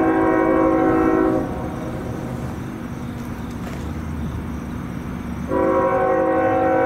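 Norfolk Southern freight locomotive's air horn sounding a chord of several notes, cutting off about a second and a half in, then a long blast starting again about five and a half seconds in. In the gap between the blasts, the approaching train's low rumble.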